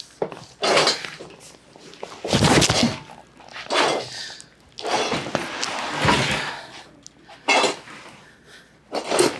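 Rummaging in a small room: a string of irregular clatters, knocks and scrapes as hard objects are shifted and knocked about.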